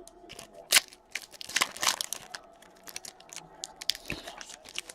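Trading card packaging and plastic sleeves being handled: a quick run of crinkles, rustles and small tearing snaps.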